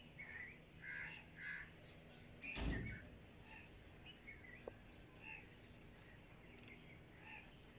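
Faint outdoor ambience of scattered short bird calls over a steady high drone of insects. There is a brief thump about two and a half seconds in.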